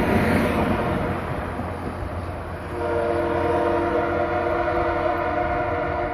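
Passenger train cars rolling away on the rails with a steady rumble and clatter, then about three seconds in the locomotive sounds a long, steady chord horn that is still sounding as the train pulls away.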